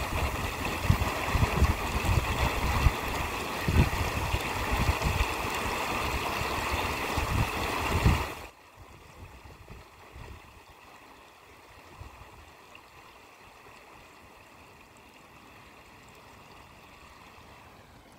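Floodwater rushing loudly through a fish ladder, with uneven low rumbles; it cuts off abruptly about eight seconds in, leaving a much fainter steady rush.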